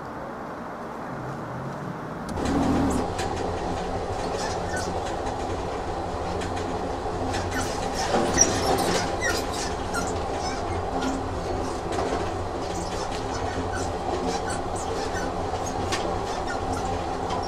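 Train sound effect: a train running with a steady hum and clickety-clack of wheels over rail joints. It cuts in suddenly about two seconds in, after a quieter low rumble, with a few brief high squeaks around the middle.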